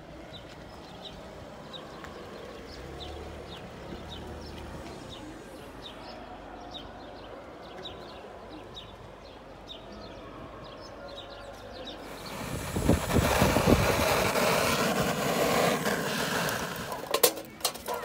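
Outdoor ambience with a small bird's short high chirp repeating about twice a second. About two-thirds of the way in, a louder rushing noise swells for about five seconds, and a few sharp clicks come near the end.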